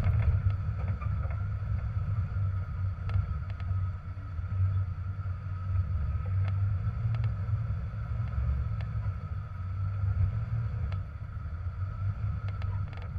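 Jeep TJ engine running low and steady while crawling over rocks, with a faint steady whine above it and a few light ticks and knocks.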